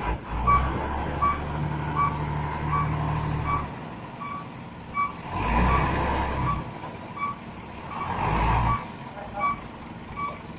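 Mercedes-Benz 917 truck's diesel engine running as the truck reverses, its reversing alarm beeping steadily about once every three quarters of a second. The engine revs up twice, once around the middle and again shortly after.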